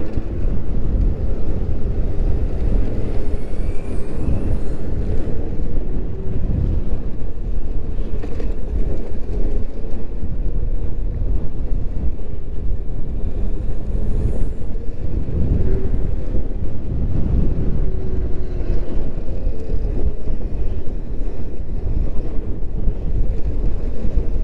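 Wind rushing over the microphone of a moving electric moped, a steady low rumble, with a faint motor whine drifting up and down in pitch underneath.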